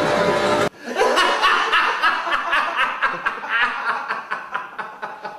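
Background music that cuts off suddenly under a second in, followed by a man laughing helplessly in quick, repeated bursts.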